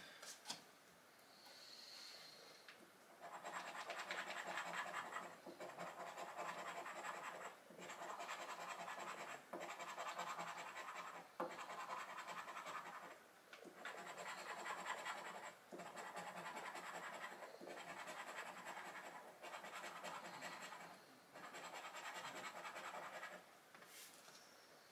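Scratch-off lottery card being scratched in about ten runs of one to two seconds each, with short pauses between, starting a few seconds in.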